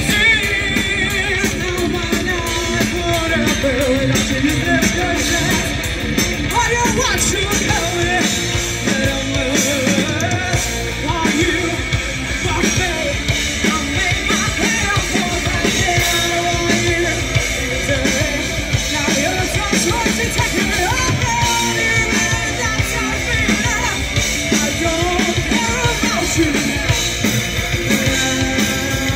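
Live rock band playing: a woman singing with a wavering, vibrato-laden voice over two electric guitars, bass guitar and a drum kit, loud and steady throughout.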